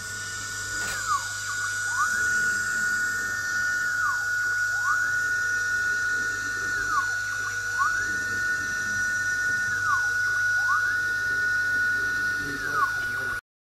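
CNC machine's stepper motors running during rotary laser engraving: a steady high whine with whining tones that glide up, hold, and glide back down every second or two as the axes speed up and slow down. The sound cuts off abruptly near the end.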